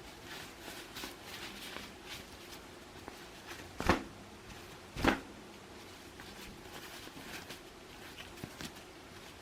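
Light rustling and handling of small objects, with two sharp knocks about a second apart near the middle.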